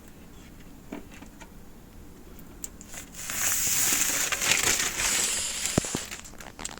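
Plastic crinkling and crackling for about three seconds, starting about three seconds in, after a few faint clicks and ending with a couple of light taps.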